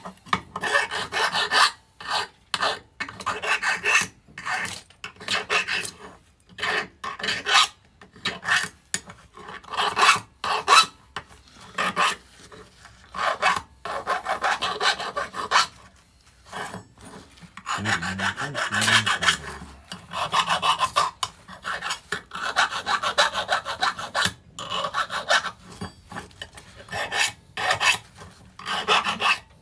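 Hand file scraping steel in repeated back-and-forth strokes, about one or two a second with short pauses, deburring the edges of freshly drilled holes.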